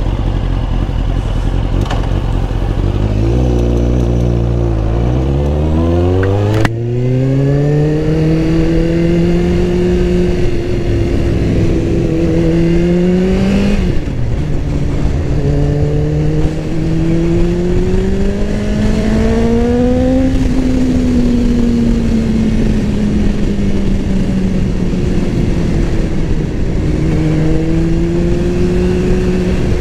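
Motorcycle engine idling, then pulling away and accelerating through the gears. Its note climbs, a sharp click comes with a gear change about seven seconds in, and the pitch rises and falls with later shifts and easing off, over a steady rush of wind noise.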